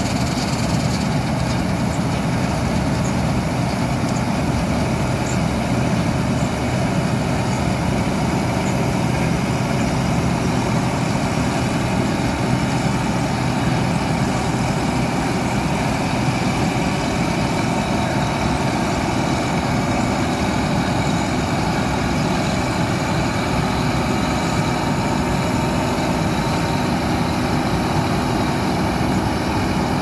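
New Holland 8070 combine harvester running steadily under load while harvesting: a loud, unchanging drone of the diesel engine and threshing machinery.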